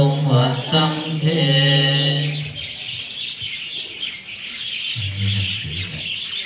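Buddhist evening chanting in Pali, monks and lay people reciting together on one low monotone pitch, which stops about two and a half seconds in. Birds chirp continuously under and after it, and low murmuring voices start near the end.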